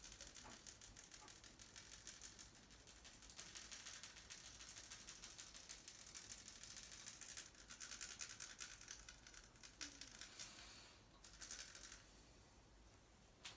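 Hands rubbing and scratching quickly over skin or hair during a massage: a faint, dense, fine scratching that stops about twelve seconds in.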